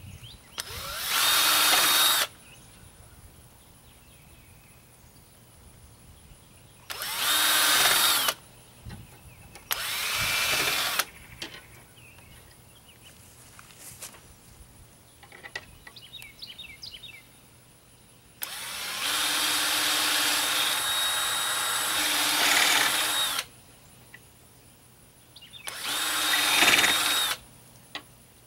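Cordless drill run in five bursts at a stainless steel hinge on a plywood door, each starting and stopping sharply, the longest about five seconds near the middle.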